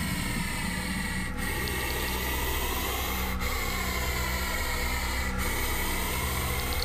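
Puff adder hissing as a warning: a continuous, rasping hiss broken by short pauses about every two seconds.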